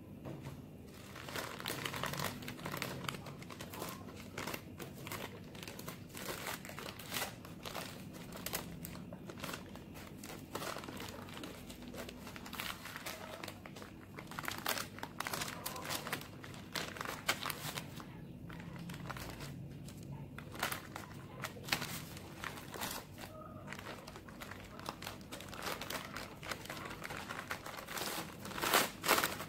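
Baking paper crinkling and rustling in irregular crackles as hands lift it and roll a sponge cake up inside it.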